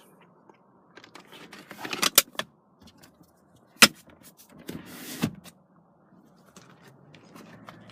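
Clicks and knocks of a car's interior fittings being handled: a cluster of clicks about two seconds in, one sharp click near the middle, then a brief rustling knock.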